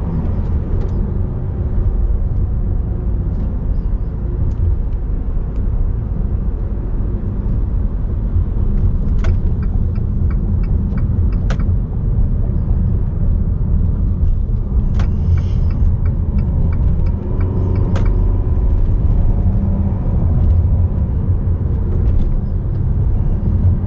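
Inside the cab of a Fiat Toro Volcano pickup with its 2.0 diesel engine, driving on a city street: a steady low rumble of engine and road noise. A few faint short clicks come through around the middle.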